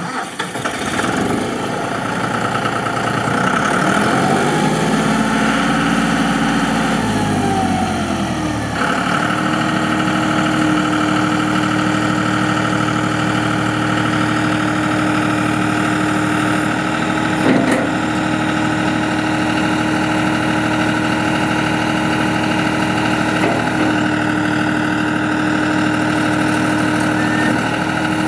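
John Deere 5055E tractor's three-cylinder diesel engine running, its pitch rising and falling over the first eight seconds or so, then held at a steady speed with a steady whine while the loader is raised. A single short clunk a little past the middle.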